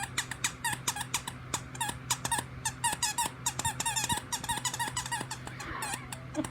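A dog chewing a squeaky toy, squeezing out a fast run of short squeaks, about five a second, with a monkey-like chattering sound. The squeaks stop about a second before the end.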